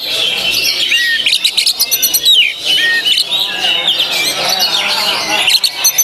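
Oriental magpie-robin (kacer) singing a fast, unbroken run of varied whistles, slurred notes and chirps, the rapid bursts of song that kacer keepers call "tembakan".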